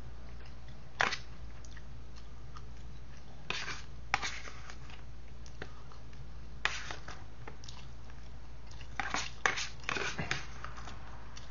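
A fork scraping and tapping in a disposable food tray while the last bits of egg are picked up, heard as short scattered clicks, most of them close together near the end, over a steady low hum.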